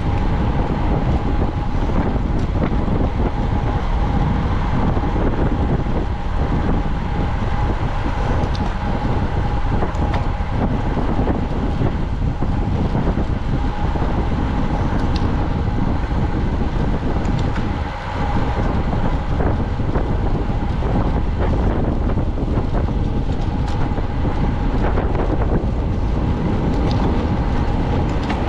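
Steady rush of wind on the microphone of a camera riding along in a road bicycle race, with a thin steady hum underneath. It dips briefly about eighteen seconds in.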